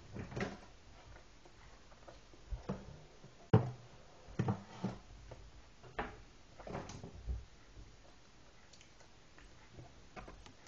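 Scattered knocks and handling noises of things being picked up, moved and set down on a kitchen worktop. The sharpest knock comes about three and a half seconds in, with a cluster of smaller ones after it.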